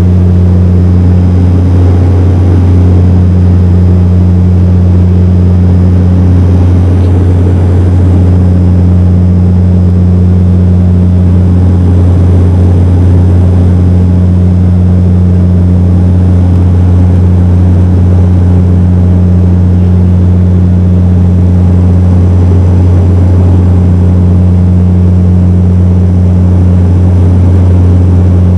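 Cabin noise of a Bombardier Dash 8 Q400 turboprop in the climb: the Pratt & Whitney PW150A engine and six-blade propeller just outside the window give a loud, steady, deep drone with rushing air noise behind it.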